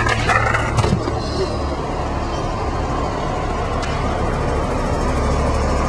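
City street ambience with a steady low rumble of traffic, and a few sharp skateboard clacks in the first second.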